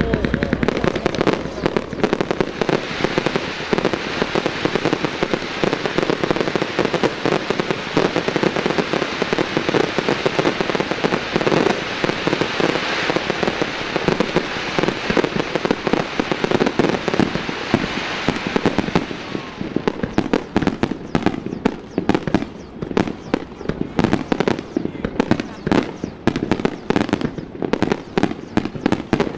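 Fireworks display: a dense, continuous crackling of many small bursts, thinning about two-thirds of the way through into scattered separate pops.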